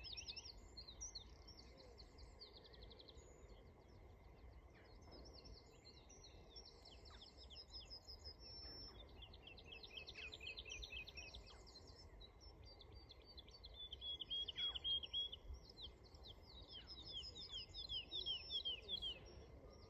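Woodlark singing: phrase after phrase of rapid, clear repeated notes, many of them sliding down in pitch, with the loudest phrases in the last third.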